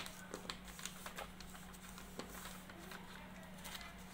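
Soft rustles and small taps of a sheet of paper being laid flat on a notebook, mostly in the first second or so, over a faint steady hum.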